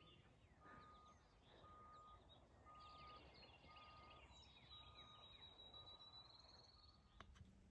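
Faint woodland birdsong: several birds chirping, with one long high whistle ending in a quick trill near the middle. Under it, a faint steady beep repeats about once a second.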